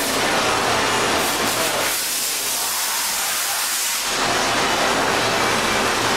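Leadwell V-60 vertical machining center running with a steady hiss and a low hum. For about two seconds in the middle the hum drops away and only a higher, thinner hiss remains.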